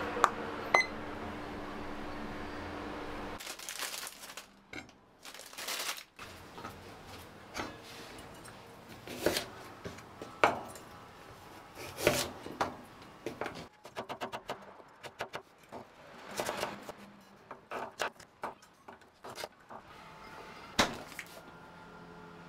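A kitchen timer's button pressed once or twice, a click and a short beep, then a chef's knife cutting a carrot on a bamboo cutting board: sharp knocks of the blade hitting the board at irregular spacing, with a quick run of cuts midway as the carrot is thinly sliced.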